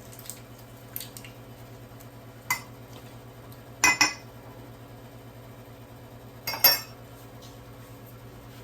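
Metal utensil clinking against a dish: a few light taps, then louder double clinks about halfway through and again later. A faint steady low hum runs underneath.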